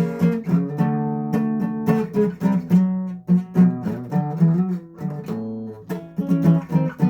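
Acoustic guitar strummed in chords that change every second or so, with a brief quieter low note about five seconds in.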